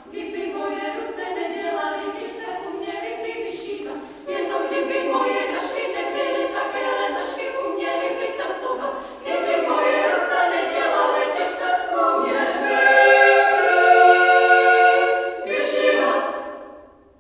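Women's choir singing a cappella in phrases with short breaks. It reaches its loudest in the last phrases, then the final chord dies away near the end as the song finishes.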